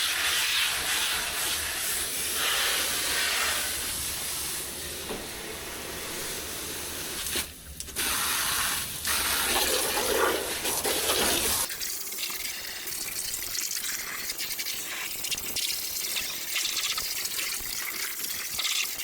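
Water spraying from a hose onto an air-conditioner condenser unit, a steady hissing spray with a brief break near the middle. A low hum underneath cuts off about two-thirds of the way through.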